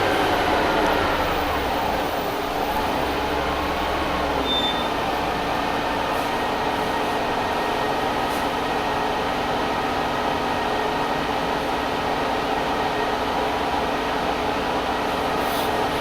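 Orion VII CNG bus's Detroit Diesel Series 50G engine and Allison B400R transmission running, a steady drone with whining tones. The pitch rises and falls in the first few seconds, then holds steady.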